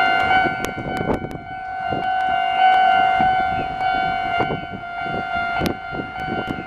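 Japanese railway level-crossing warning bells ringing steadily. The near and far crossings' bells are out of step with each other. Scattered sharp clacks sound over the ringing.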